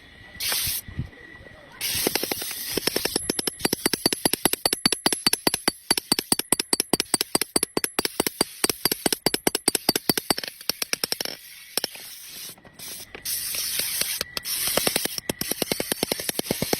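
Rapid hammer blows on iron, about five a second, in two long runs with a short break between them, as a dao blade is forged.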